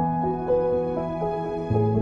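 Slow instrumental background music: a stepping single-note melody over held low notes, with the low note changing near the end.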